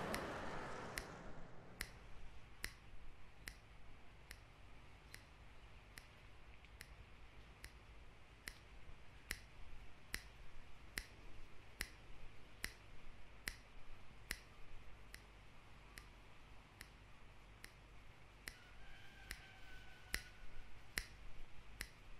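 A person snapping their fingers over and over, about one to two snaps a second at a slightly uneven pace, over a faint low hum.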